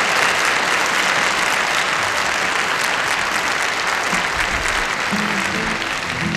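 Audience applauding, a steady clapping that thins toward the end as a guitar starts playing the song's opening notes about five seconds in.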